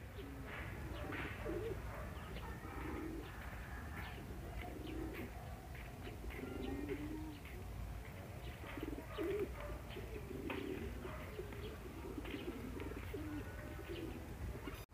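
Pigeons cooing over and over in soft, low calls, with faint chirps from smaller birds and a low steady rumble underneath.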